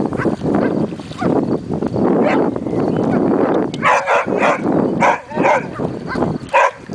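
A brown search-and-rescue dog, a Labrador type, gives a run of short, high barks and yelps starting about four seconds in. The barking is its alert on the person lying in the water.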